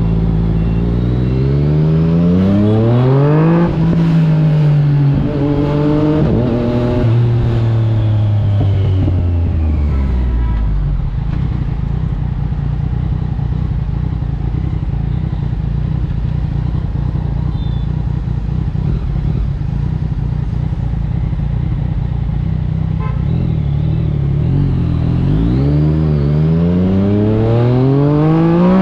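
Yamaha MT-09's 890 cc inline-three engine through an Akrapovič exhaust, revving up hard through a gear change and then winding down. It holds steady at low revs for about thirteen seconds, then revs up hard again near the end.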